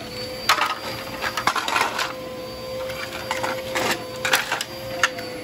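A series of irregular sharp clicks and taps over a faint steady tone.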